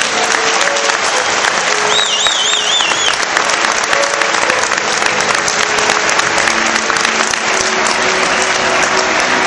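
Large crowd applauding steadily, with a warbling whistle from the crowd lasting about a second, some two seconds in.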